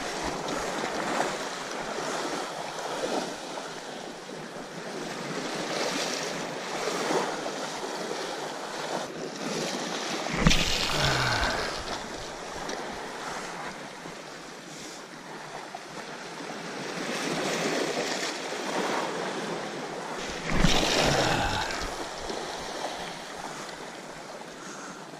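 Sea surf washing against a rock shelf, swelling and easing, with wind on the microphone and two louder rushes about ten and twenty seconds in.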